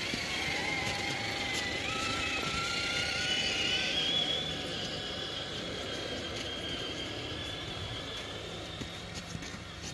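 Electric motors and gear trains of several 1/10-scale RC crawler trucks whining together as they drive up through snow, with a couple of the whines rising in pitch about two seconds in as a truck speeds up.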